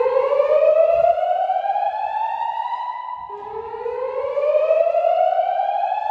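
Fire alarm voice-evacuation speakers, Gentex signals on a DVC voice system, sounding the whoop evacuation tone. It is a slow rising sweep about three seconds long, heard twice, with an overlapping copy slightly behind each sweep.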